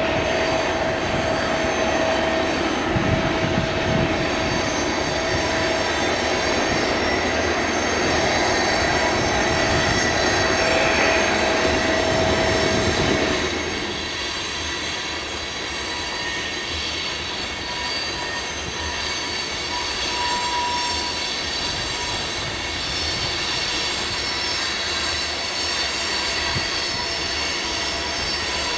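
Canadian Pacific diesel locomotives pulling and pushing a heavy coal train up a grade, a steady engine drone. A high whine runs through the first half and stops about halfway through, after which the drone is a little quieter.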